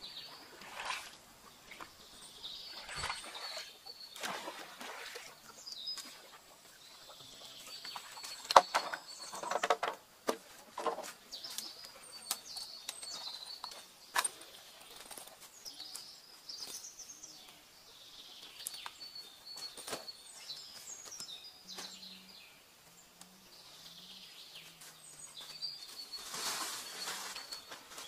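Small birds calling over and over with short high chirps, over footsteps and rustling in dry leaves and palm fronds and the handling of gear, with a few sharp knocks; the loudest knock comes about a third of the way in.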